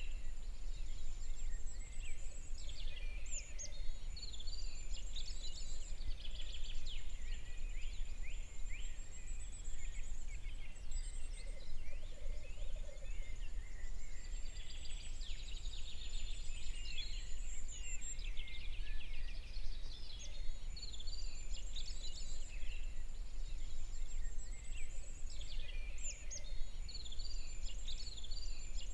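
Several birds singing at once, a dense chorus of quick chirps and trills, over a low steady rumble.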